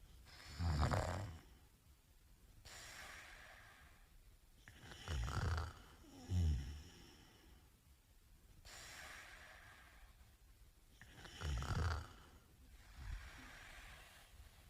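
A sleeping man snoring: loud, low, rasping snores about every five seconds, one of them followed by a short second snort, with softer breathy hisses in between.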